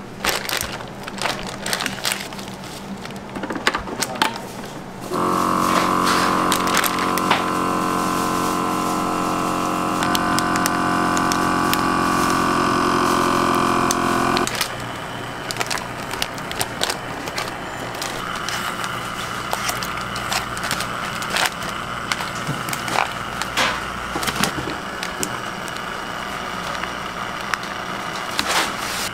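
Vacuum sealer running steadily for about nine seconds, shifting slightly in pitch partway through and cutting off abruptly, as the bag of seasoned beef rib is drawn down and sealed. Light clattering from handling before and after, with a quieter steady hum in the last part.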